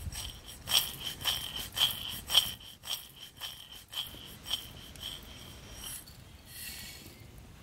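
Nuts and seeds being tossed in a small steel pan over a fire: a clicking rattle with a ringing metal note about twice a second, fading toward the end. Near the end, a short rattle as the roasted nuts and seeds are poured from the pan into a stone mortar.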